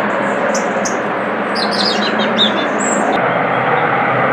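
Steady, loud noise of a rescue helicopter's engine and rotors. Small birds chirp high above it through the middle.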